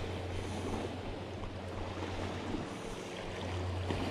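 Calm sea washing against a rocky shore, a steady noise with a constant low rumble under it, and a few faint clicks from handling near the end.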